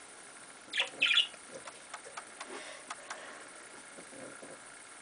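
Budgerigar giving two short harsh squawks about a second in: the call of an agitated parent bird whose eggs are being handled. Faint scattered clicks follow.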